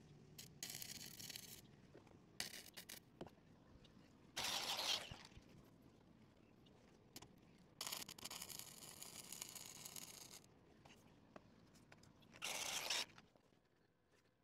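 Stick welding with a 5/32-inch rod: the arc crackles and sizzles in several separate runs of about half a second to two seconds, with pauses between them.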